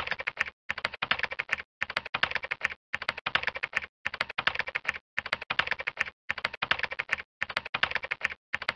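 Rapid computer-keyboard typing in about nine bursts of roughly a second each, with short pauses between them.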